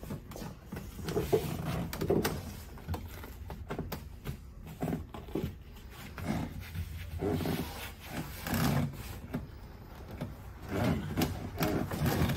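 Handling noises of vinyl headliner fabric being pulled and pressed against the car's roof: irregular low, muffled rustles and rubs every second or two, with scattered sharp clicks.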